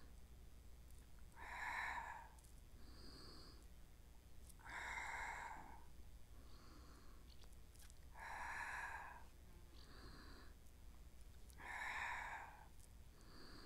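A woman breathing slowly and audibly through an exercise: a louder breath about every three seconds with a softer one between, keeping time with the arm movements.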